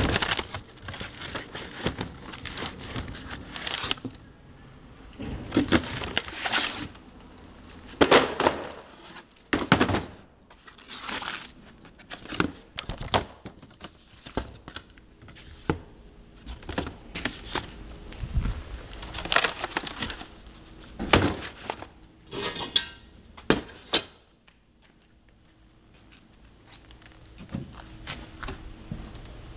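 Cardboard packaging and gear being handled close to the microphone: irregular crinkling, rustling and scraping with occasional knocks, quieter for a few seconds near the end.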